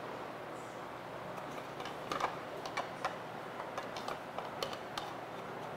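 Irregular sharp plastic clicks and ticks, several a second, starting about a second and a half in and stopping shortly before the end, from hands working a housing wrench on the plastic filter housing of a deionized-water cart.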